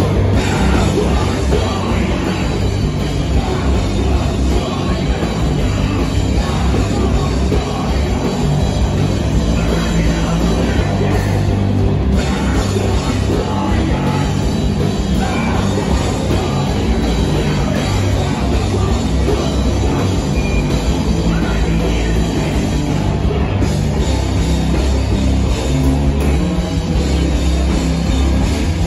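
Hardcore punk band playing live and loud: distorted electric guitar and bass over a pounding drum kit, with shouted vocals.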